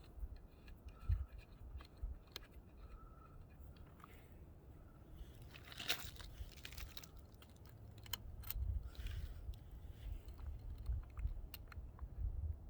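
Small metal clicks and taps of track bolts, nuts and a screwdriver being handled while a rail joint is fitted, with two louder gritty crunching scrapes about six and nine seconds in.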